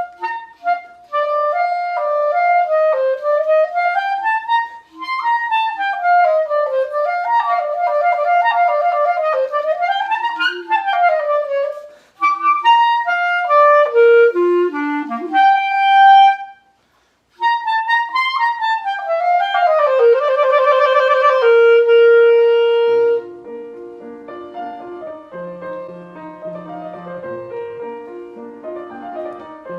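Clarinet playing fast runs and leaping arpeggios, dropping to low notes, then a short pause and another quick passage ending in a rapid trill and a held note. After that a piano carries on alone, softer, with low chords.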